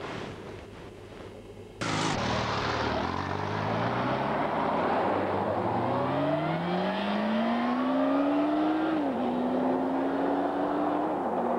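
Kawasaki ZX-12R inline-four sport bike accelerating hard away, its engine note rising steadily through a long pull, with an upshift about nine seconds in and another near the end. Before that, a low hiss for about two seconds, then the engine sound cuts in abruptly.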